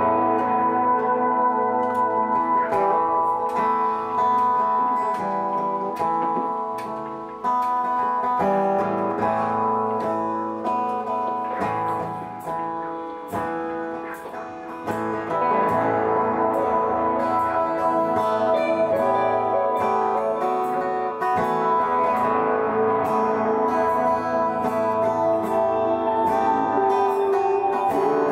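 Live guitar music from a small band of acoustic and electric guitars, with plucked notes ringing over a steady bed. It drops to a softer passage about a quarter of the way in and comes back fuller around halfway.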